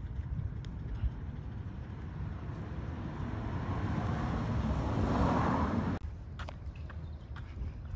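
A passing car's engine and tyre noise swells over a low street rumble and cuts off suddenly about six seconds in. Then come scattered steps on the concrete sidewalk.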